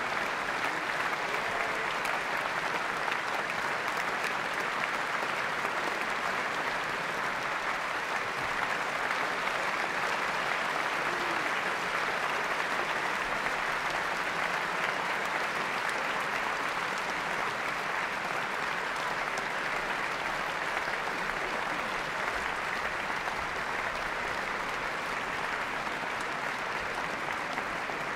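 Concert audience applauding steadily: dense, even clapping with no music.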